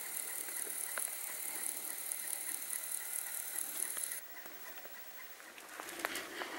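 Video camera's zoom lens motor whirring faintly, a thin high whine with a few light clicks, stopping abruptly about four seconds in.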